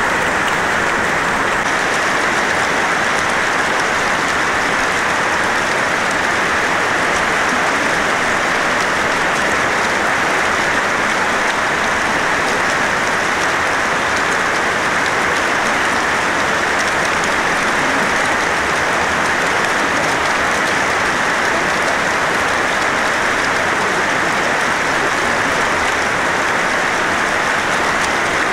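Running water splashing steadily, an even rushing patter.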